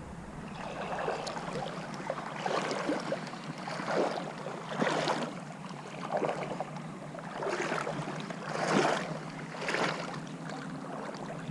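Water swishing and splashing around legs wading through a river, in surges roughly a second apart.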